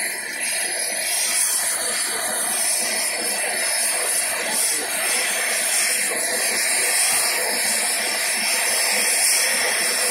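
Sikorsky UH-60 Black Hawk helicopter running on the ground with its rotors turning; its twin turboshaft engines give a steady, loud, high rushing hiss that holds without a break.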